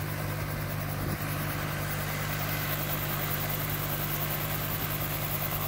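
Small helicopter idling on the ground: a steady engine hum with the rotor turning.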